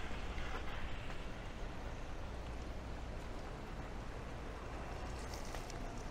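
Steady rain falling on a city street, an even hiss with a low, constant rumble of city noise underneath.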